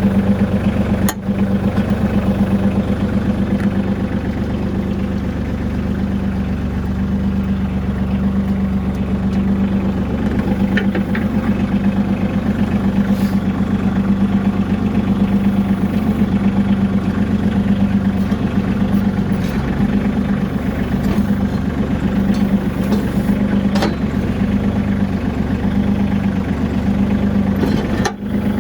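Bobcat CT2025 compact tractor's diesel engine running steadily while the backhoe is worked on the hydraulics to line its mounting pins back up.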